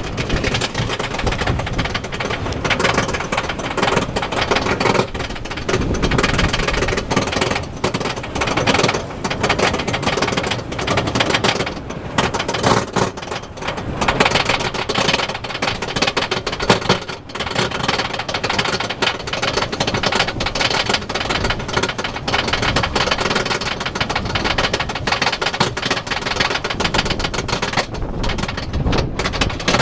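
Chain lift of an Intamin wooden roller coaster hauling the train up the lift hill: a steady, rapid clacking of chain and ratchet under the cars.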